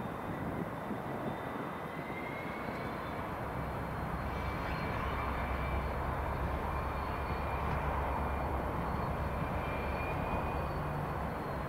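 Class 66 diesel-electric locomotive's two-stroke V12 engine running with a low drone that grows louder about four seconds in, with a faint high whine over it.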